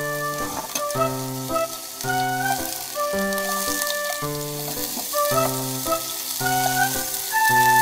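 Bean sprouts sizzling as they fry in a frying pan. Background music with a melody of held notes plays over it.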